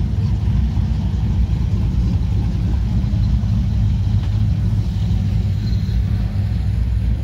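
Pontiac GTO's V8 idling with a steady low rumble.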